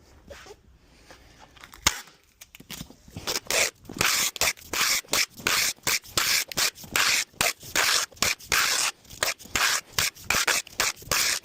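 Packing tape being run onto a cardboard box. After a quiet start with one knock, it turns into a series of short rasping strokes, about two or three a second.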